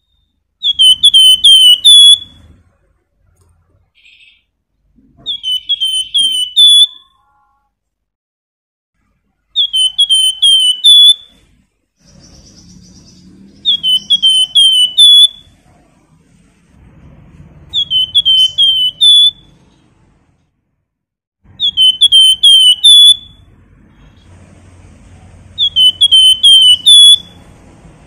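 A caged flamboyan (Horsfield's babbler) singing: seven short loud phrases, each a quick run of four or five slurred whistles ending on a higher note, repeated about every four seconds.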